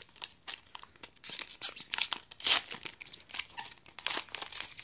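Foil booster pack wrapper being crinkled and torn open by hand: irregular crackling and tearing, loudest about two and a half seconds in and again near the end.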